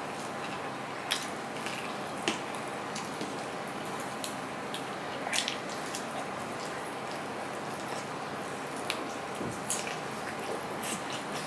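Close-miked eating by hand: wet chewing and mouth smacks, with fingers squishing rice and curry on a steel plate. These come as scattered short, moist clicks over a steady background hiss.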